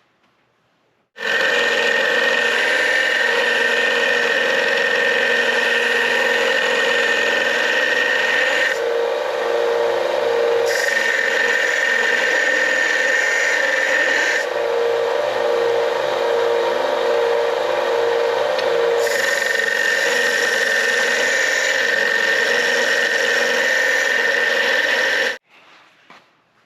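Harbor Freight belt-and-disc combination sander running and grinding the edges of steel bar stock. It starts about a second in and runs loud and steady with a high steady whine, its tone changing for a few seconds twice, then stops abruptly near the end.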